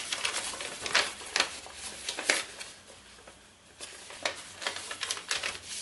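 Metallic silver/gold kraft paper rustling and crinkling as it is folded and creased by hand: a string of short crinkles, with a quieter spell a little past the middle.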